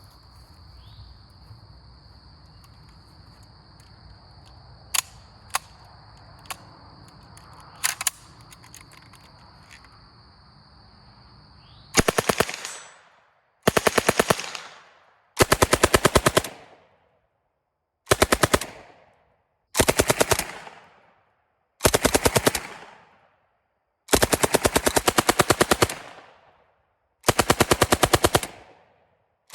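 Group Industries Uzi 9×19mm submachine gun firing eight short bursts of full-automatic fire, each half a second to about two seconds long, the longest near the end. Before the first burst there are about twelve seconds of low background with a steady high whine and a few sharp clicks.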